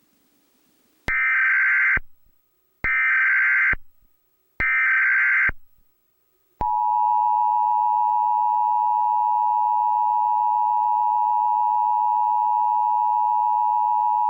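Emergency Alert System broadcast signal: three short, harsh digital data bursts (the SAME header), then, about six and a half seconds in, the steady two-tone attention signal that holds unchanged.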